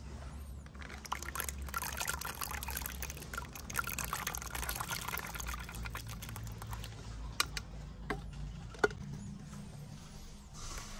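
Water being poured for several seconds, followed by three sharp clicks.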